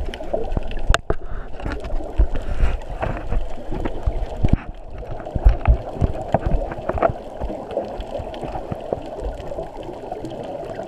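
Muffled underwater sound through a GoPro's waterproof housing: water swishing and bubbling against the case, with irregular low thumps and knocks as the camera is moved through the water on a pole.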